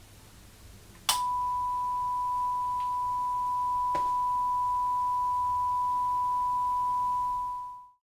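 A steady, pure electronic tone like a test-tone beep. It starts suddenly with a click about a second in, holds at one pitch for about seven seconds, and fades out near the end.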